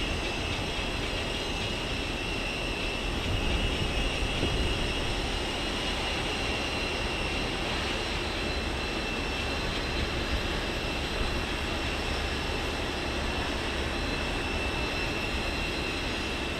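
Steady jet aircraft noise: a constant rumble with a steady high-pitched whine over it.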